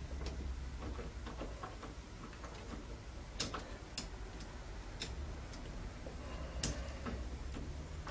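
Screwdriver turning the terminal screws of a UK 13 A mains plug: faint scattered ticks and clicks of metal on metal, with a few sharper clicks through the middle, over a low steady hum.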